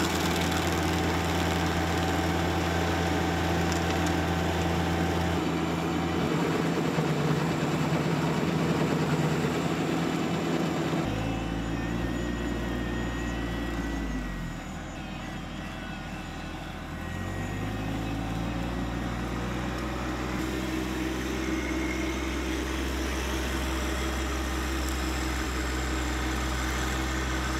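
John Deere compact tractor running a PTO-driven Baumalight stump grinder into a stump. About eleven seconds in, the sound changes to a small gas-engined Stihl Kombi tool with a power-sweeper brush throwing wood chips, with the tractor running behind it; a few seconds later the engine sound drops off briefly and then speeds back up.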